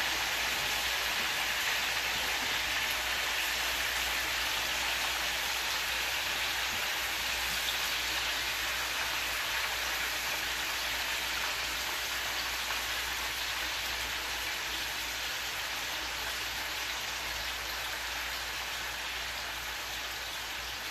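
Pieces of beef frying in hot oil in a pan: a steady sizzle that slowly eases off as the meat sears.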